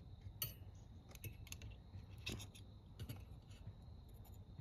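Faint, scattered light metallic clicks and taps, about half a dozen, the clearest a little over two seconds in, from a metal lumbar-support plate and its cable being handled and fitted against the wire frame of a 2010 Honda Pilot front seatback.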